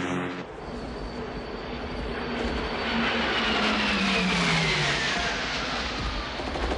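Jet fighters flying past in formation: a loud engine rush with a whine that falls steadily in pitch between about three and five seconds in. Just before it, a propeller plane's engine drone cuts off about half a second in.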